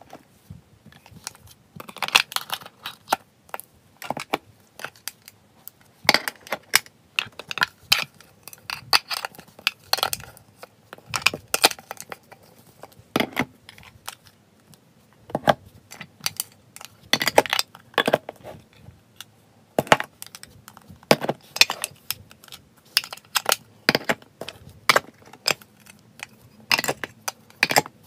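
Small metal pet-food tins clinking and tapping against each other and the tabletop as they are handled, stacked and set down. Sharp clicks come in irregular clusters with short pauses between them.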